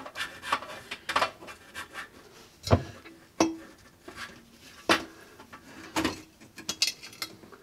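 Handling sounds under a sink as a dishwasher drain hose is pulled off the garbage disposal's inlet: irregular sharp knocks and rubbing of the hose against the pipes and the catch jar.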